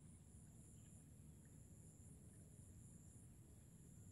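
Near silence: faint rural ambience, with insects keeping up a steady high trill that pulses about three times a second over a low rumble.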